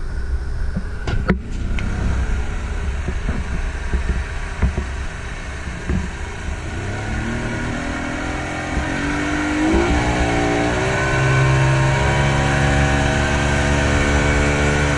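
Yamaha 200 outboard motor pushing a speedboat, under wind buffeting and rushing water. About seven seconds in the engine note climbs as it speeds up, then holds at a high, steady pitch.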